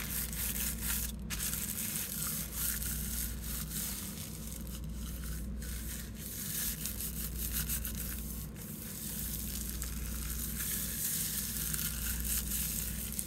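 Hands rubbing and pressing thin artist tissue paper against a gel printing plate over leaves and stems: a steady rustling of paper under the fingers, with a low steady hum underneath.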